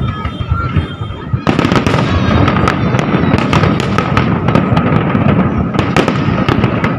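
New Year's Eve fireworks and firecrackers going off across a town: a dense run of cracks and pops, many overlapping. It gets suddenly louder and denser about a second and a half in.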